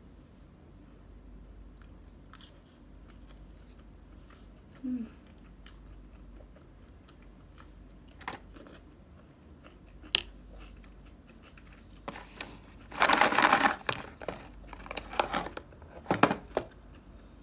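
Faint chewing and small clicks of a plastic spoon, then a couple of seconds of loud plastic crinkling and clattering near the end as a clear plastic food-container lid is handled.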